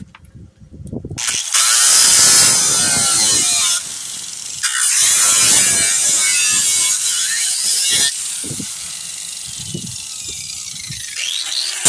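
Angle grinder with a sanding disc grinding out a void in a fibreglass boat hull's bottom. The motor comes up about a second in, and the disc bites hard in two long passes, dropping back to a lighter run in between and after about eight seconds.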